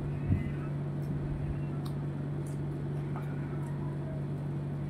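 A steady low hum runs throughout, with faint scattered clicks and small smacking sounds of chewing as a man eats flatbread and potato curry by hand, and one small thump near the start.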